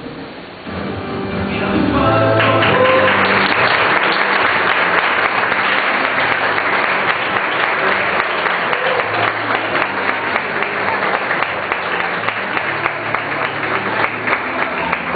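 Audience applauding, the clapping swelling over the first two seconds and then holding, over music with low sustained notes.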